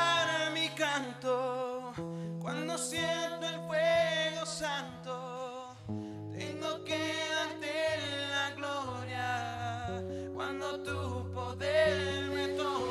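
A man singing a slow worship song while playing acoustic guitar, his voice holding long wavering notes over sustained chords that change every couple of seconds.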